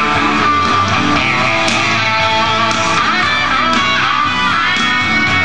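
Rock music with strummed electric guitar playing steadily.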